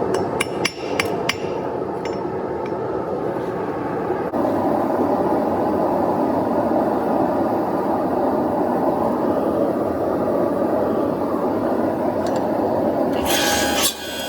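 Hand hammer striking hot steel on an anvil during forging, about half a dozen sharp blows in the first two seconds. After that comes a steady rushing noise that jumps louder about four seconds in, and a brief hiss near the end.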